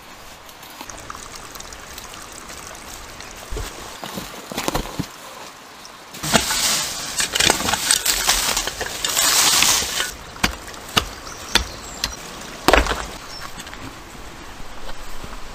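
Digging in forest soil and dead leaves: loose earth and leaf litter scraped and flung in a hissing spray for about four seconds, then several sharp knocks as digging strikes earth and stone.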